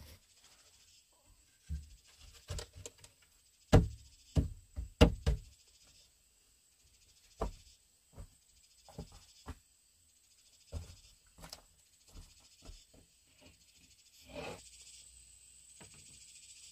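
Irregular hollow knocks and clunks of wooden planks being fitted and handled, several in quick succession in the first five seconds, then sparser, with a short scrape near the end. A faint steady high-pitched insect drone runs underneath.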